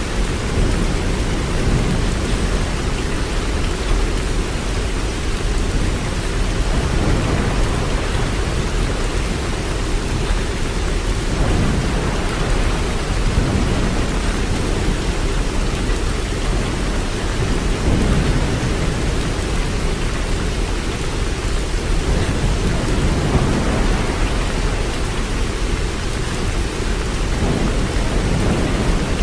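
Waterfall: a steady, loud rush of falling water, deepest in the low end.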